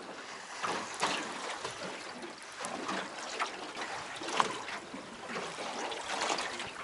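Water trickling and lapping, with small irregular splashes and crackles.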